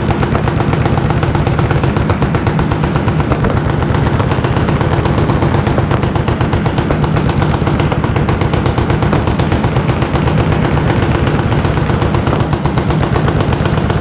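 Machine-gun fire from the firing line, several automatic weapons shooting at once, so the bursts overlap into a dense, unbroken rattle with no pause.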